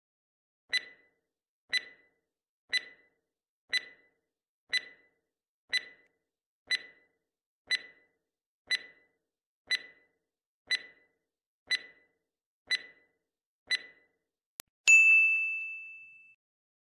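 Countdown timer sound effect ticking about once a second, fourteen ticks in all, then a short click and a bright ding that rings out for about a second and a half: time is up and the answer is revealed.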